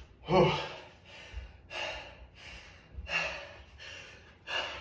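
A man breathing hard after a set of burpees: a loud, partly voiced gasping exhale, then three more deep breaths about a second and a half apart.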